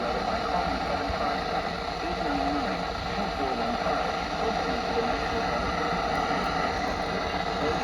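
Steady hiss of weather-radio static with a faint, unintelligible voice wavering underneath it.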